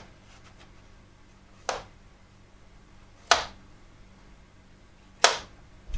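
A kitchen knife cutting through pumpkin and knocking on a plastic cutting board while the skin is cut off the pumpkin, four sharp knocks one and a half to two seconds apart.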